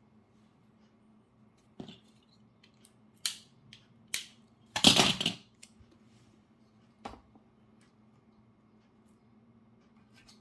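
Scattered clicks and taps from handling small pieces of Kapton tape and scissors, with one louder rustle of just under a second about five seconds in.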